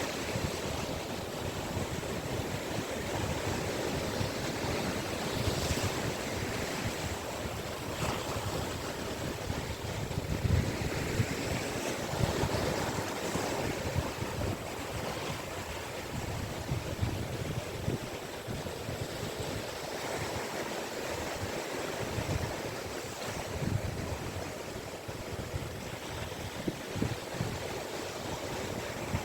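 Caspian Sea waves breaking and washing steadily on the beach, with gusts of wind rumbling on the microphone.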